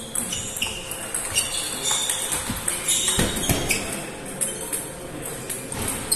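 Table tennis balls clicking off bats and tables at several tables at once: an irregular patter of sharp clicks in a large hall.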